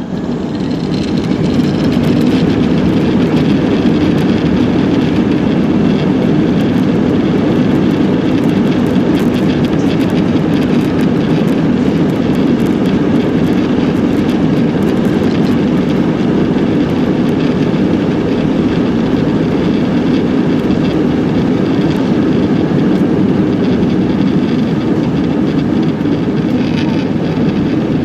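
Airbus A318 jet airliner's engines running at high power, a loud steady rumble that builds over the first couple of seconds and then holds.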